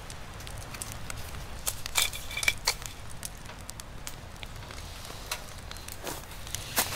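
Metal clicks and a short ringing scrape, about two seconds in, as a cylindrical metal camp candle lantern is handled and opened. Under them runs the low, steady crackle of a wood stove burning.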